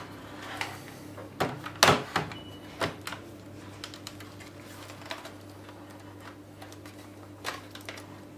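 Knocks and clicks of the Samsung NP300V5A laptop's plastic case being turned over and set down on a wooden bench, the loudest about two seconds in, then sparse light clicks of a metal pick and prying tool against the case. A steady low hum runs underneath.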